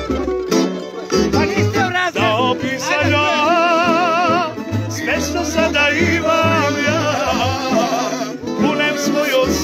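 A man singing a folk song with a strongly wavering, ornamented voice, accompanied by acoustic guitar.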